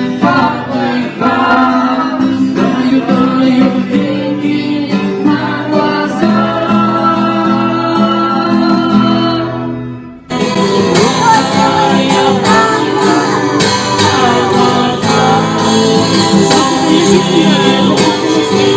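A song with singing over guitar accompaniment. About ten seconds in it fades out briefly, then comes back at once in a fuller, brighter section.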